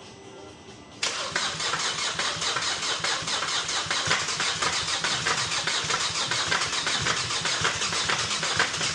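Car engine running with a loud, rapid metallic rattle that starts suddenly about a second in: the sound of a worn or slack timing chain, not engine knock.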